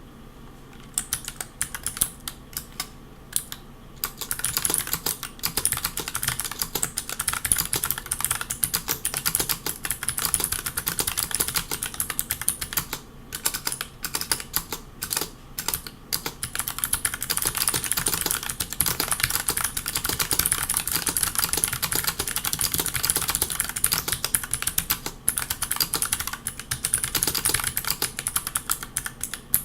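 Typing on a 40% mechanical keyboard with custom clicky MX-style switches and GMK keycaps: a fast stream of sharp clicks. The keystrokes start sparsely about a second in, become a steady, dense run after about four seconds, and break off in a few short pauses.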